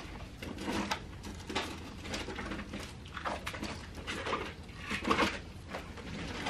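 Rustling and soft handling noises as clothes and belongings are packed into a duffel bag on a bed: a string of short, irregular scuffs and rustles.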